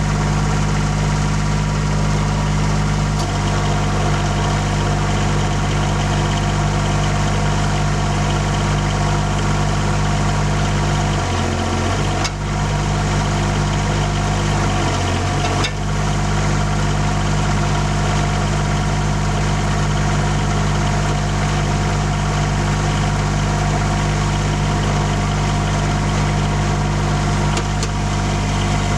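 Cub Cadet 1772 garden tractor's diesel engine idling steadily, its note dipping briefly twice near the middle, with two sharp clanks at about the same moments.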